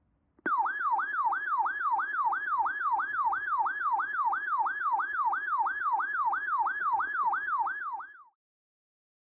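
Electronic siren in a fast yelp, its pitch sweeping up and down about three times a second. It starts abruptly about half a second in and cuts off about eight seconds in.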